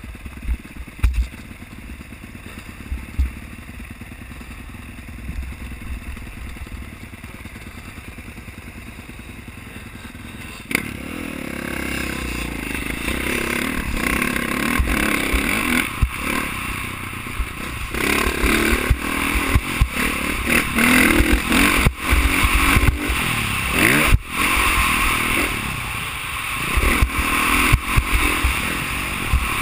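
Dirt bike engine running quietly at first with low thumps of wind on the helmet-mounted microphone; about eleven seconds in it revs up and runs hard as the bike rides the motocross track, with wind noise and sharp knocks from the bumps.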